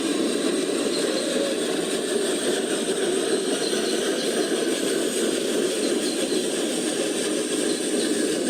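Radio-controlled model trucks running, giving off a steady motor and gearbox whir with no starts or stops.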